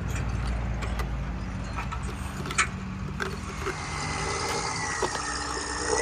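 Hard plastic clicks and a sharp knock as a toy tractor's front loader tips a plastic round bale into a plastic trailer, over a steady low rumble.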